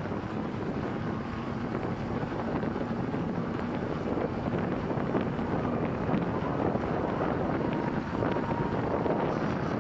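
Wind noise on the microphone and road noise of a bicycle riding along asphalt, a steady rush.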